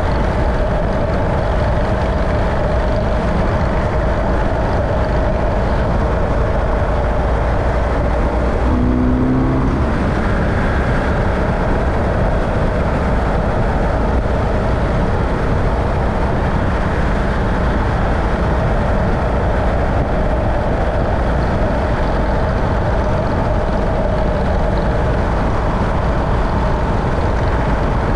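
Steady running noise of a road vehicle driving at an even speed, engine and tyre noise without a break. A brief pitched sound passes about nine seconds in.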